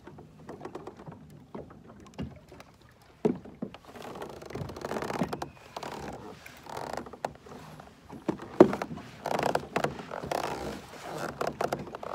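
Water splashing and sloshing around a fishing kayak as it moves off. Irregular knocks of gear against the hull come through, the sharpest a little past the middle.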